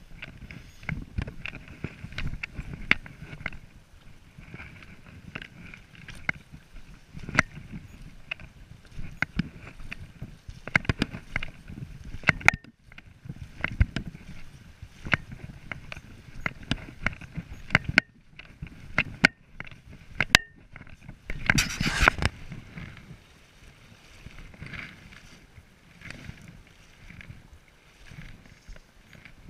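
Irregular footsteps crunching on creek-bank stones and sloshing through shallow creek water, with brush and gear rustling close by; a louder burst of rustling comes about 22 seconds in.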